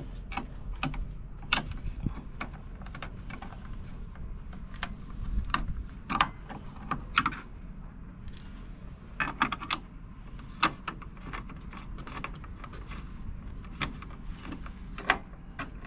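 Irregular metallic clicks and clinks of hand tools, a screwdriver and wrench, turning and tightening the bolts of a trolling-motor mount.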